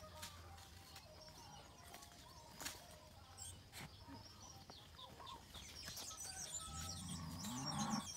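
Birds chirping in the early-morning farmyard, with small clicks from the mule's bridle and bit being fitted. Near the end a louder, low-pitched call swells up under denser chirping.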